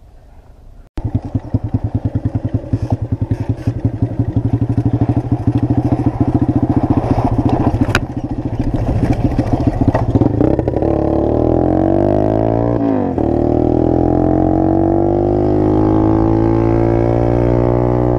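Single-cylinder mini motorcycle (pit bike) engine under way, starting suddenly about a second in with a steady pulsing chug. From about ten seconds in the pitch rises as the bike accelerates, drops briefly around a gear change, then climbs again.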